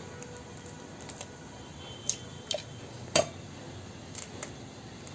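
An egg tapped against the steel jar of a mixer-grinder to crack its shell: a few short sharp taps, the loudest about three seconds in.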